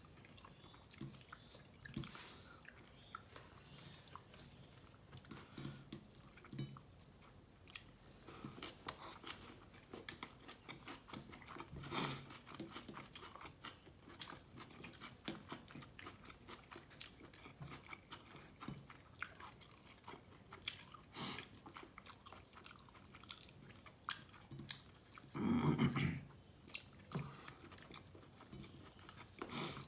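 Close-miked eating sounds of a person chewing a mouthful of beef tehari and egg korma: soft, wet, irregular chewing clicks with occasional louder bites. One longer, louder noise comes about 25 seconds in.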